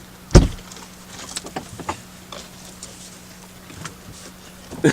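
A single heavy thump about half a second in, then a few light clicks and knocks over a faint steady hum.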